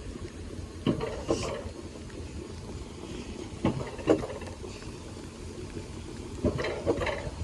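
Mountain coaster sled running along its metal rail with a steady low rumble. Pairs of short knocks come about every three seconds, typical of the sled's wheels passing rail joints.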